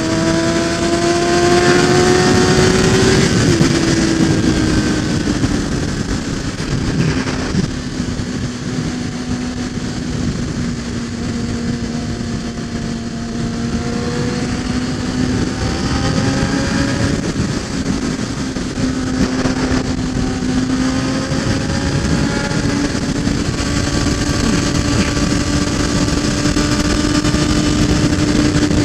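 Sport motorcycle engine running at road speed under wind and road noise. The engine note climbs over the first three seconds, drops as the throttle eases off, holds lower through the middle, then rises a little again about two-thirds through.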